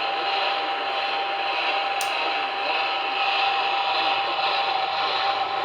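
Static from a radio receiver: a steady hiss with a steady whine through it, and a short click about two seconds in.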